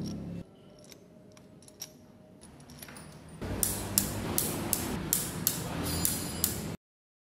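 Hand ratchet wrench clicking in short strokes, about two to three sharp metallic clicks a second, as the camshaft bearing-cap bolts on an Isuzu 4JJ cylinder head are tightened over a steady workshop hum; the sound cuts off abruptly near the end. Before it, a few faint clicks of metal parts being handled.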